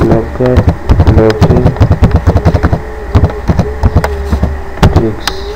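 Typing on a computer keyboard: a quick, irregular run of keystroke clicks over a low steady hum, with a wavering tone in the background.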